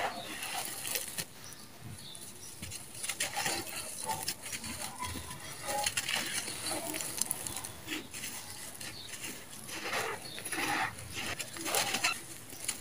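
Dry, dusty red sand-cement mix scooped and crumbled by hand, its grains and small clods pouring and pattering back onto the sand pile with gritty crackling, in uneven bursts that grow stronger in the second half.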